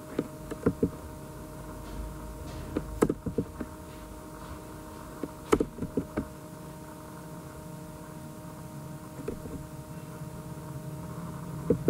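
Computer keyboard and mouse clicks in a few short clusters, over a steady low electrical hum.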